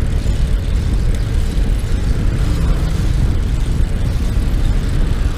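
Steady low rumble of wind buffeting a GoPro's microphone on a moving bicycle, with road traffic underneath.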